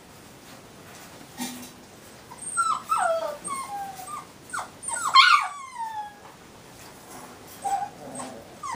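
Young puppies squealing and whimpering in a run of short, high cries that fall in pitch, most of them in the middle of the stretch with the loudest just past halfway, and a couple more near the end.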